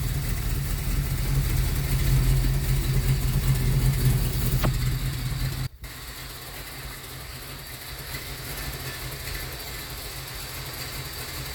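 Sunbeam Tiger's Ford V8 idling steadily while warming up from a cold start. Partway through, the sound cuts off abruptly and a quieter, steady engine hum carries on.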